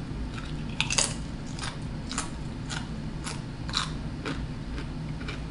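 Someone biting and chewing a crisp chip: a string of short, irregular crunches, about two a second, the sharpest about a second in.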